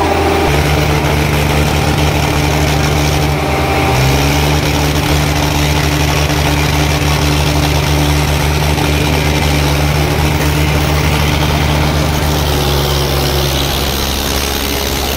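Sonalika DI-750 III tractor's diesel engine running steadily and loud, with a small step up in pitch about four seconds in.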